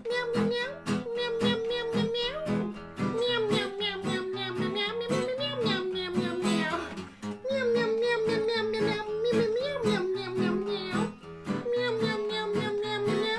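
A man's voice imitating a cat, long wavering meow-like cries, over a strummed acoustic guitar. The cries break off briefly twice.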